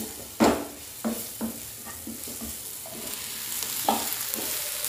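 Sliced green and red chillies going into hot oil in a kadai and sizzling steadily, while a wooden spatula stirs them with scrapes and short knocks against the pan, the loudest about half a second in.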